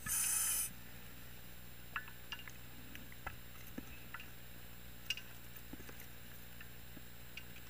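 Scuba gear underwater: a short burst of hissing gas lasting about half a second at the start, then faint scattered clicks and ticks.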